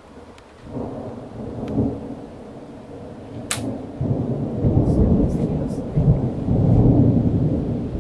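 Thunder rumbling, building about a second in, rolling loudest through the second half and easing off near the end. A brief sharp click about three and a half seconds in.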